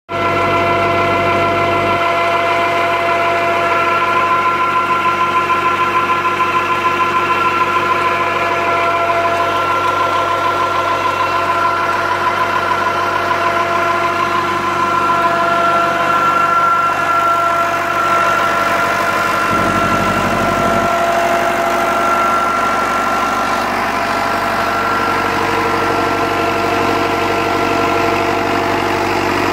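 Fiat 640 tractor's diesel engine running steadily at a constant speed.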